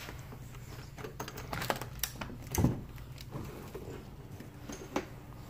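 Irregular clicks and knocks of a handheld phone being jostled as its holder walks, with one louder thump about two and a half seconds in.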